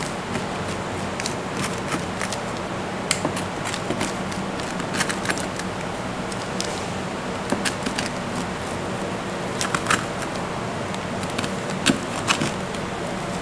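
Rotary pizza cutter rolling through a wood-fired pizza with a scorched crust, giving scattered sharp crackling clicks over a steady background hum.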